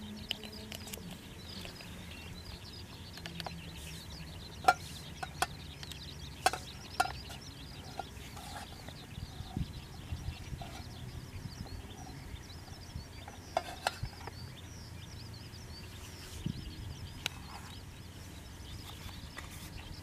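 Outdoor ambience: a steady low hum under faint, continuous high chirping, broken by several short sharp clicks, the loudest about five, six and a half, seven and fourteen seconds in.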